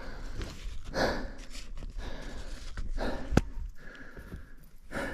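A hiker breathing hard while climbing through deep snow in snowshoes, with noisy snow steps about every second. One sharp click comes a little past three seconds in.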